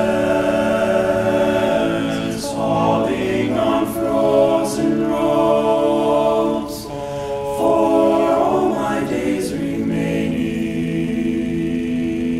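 Men's a cappella group singing in close harmony without instruments, the chords shifting every couple of seconds with crisp 's' sounds from the words, and settling into a long held chord near the end.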